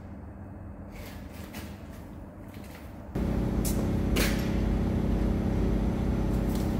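A large centre lathe's electric motor switches on about three seconds in and runs steadily with a low hum, with a couple of light metal clinks just after as the chuck and part are handled.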